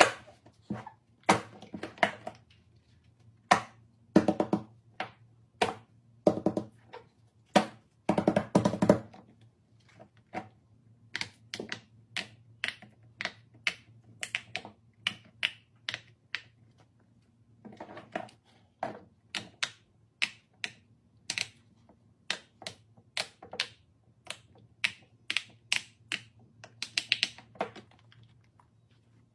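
Silicone pop-it fidget toys being handled and laid on a hard surface: irregular sharp clicks and taps, with quick runs of clicks about four and eight seconds in, over a faint steady low hum.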